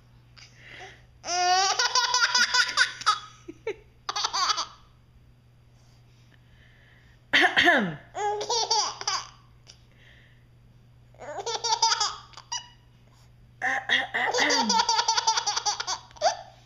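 Baby laughing hard in repeated fits, about six bursts of pulsing giggles and belly laughs with short pauses between them, set off by his mother's coughing.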